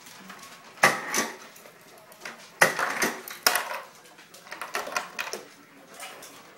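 Ice cubes clattering out of a refrigerator's door ice dispenser as a Great Dane pushes the dispenser lever with its muzzle, in loud bursts about a second in and again around three seconds, followed by softer clinks.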